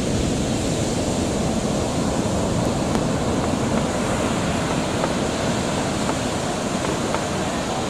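Heavy Pacific surf during a ground swell: big waves breaking and foam washing up the sand, a steady rushing roar of water.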